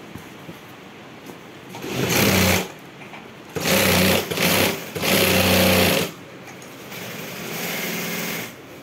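Industrial sewing machine stitching through a nylon backpack in stop-start runs of about a second each, then a softer, longer run near the end.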